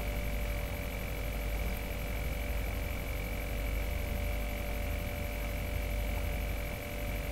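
Steady electrical mains hum with a few constant whining tones over a faint hiss.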